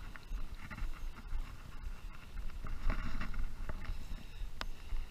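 Low rumble of wind on the camera's microphone, with scattered faint crackles and a single sharp click about four and a half seconds in.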